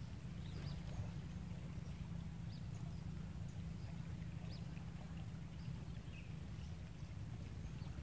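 Outdoor riverside ambience: a steady low rumble with a few faint, brief bird chirps scattered through it and a thin, steady high-pitched tone.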